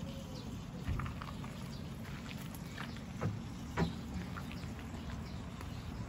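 Outdoor garden ambience: a steady low rumble with a few soft knocks and faint ticks, about a second in and again between three and four seconds in.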